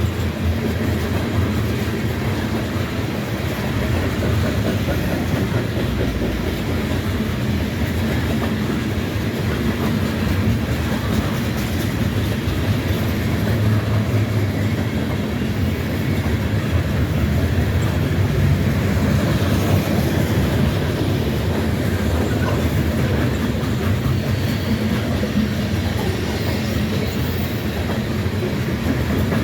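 Freight train cars rolling past steadily, a continuous low rumble with wheels clacking over the rail joints.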